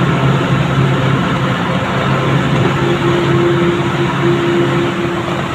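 Truck engine running steadily on the road, a continuous low drone with road noise; a higher steady whine joins about three seconds in and stops just before the end.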